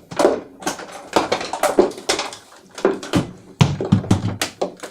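Irregular clatter, clicks and knocks of a plastic extension strip and multi-plug adapter with cords being picked up and handled, with a few heavier knocks in the second half.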